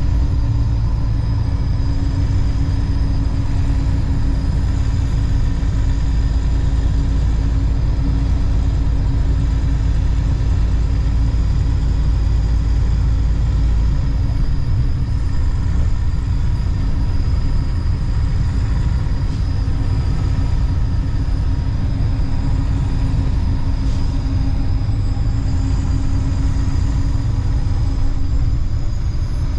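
Steady rumble of a moving road or rail vehicle, with a few steady hums over it; the deepest part of the rumble drops away about halfway through.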